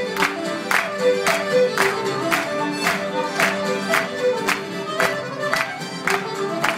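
Irish traditional band playing a dance tune led by fiddles and accordion, with a sharp beat about twice a second.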